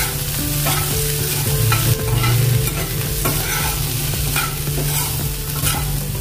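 Sliced bitter gourd frying in oil in a pan over a lowered gas flame, sizzling steadily, while a spoon stirs it and scrapes the pan in quick irregular strokes about twice a second. A steady low hum runs underneath.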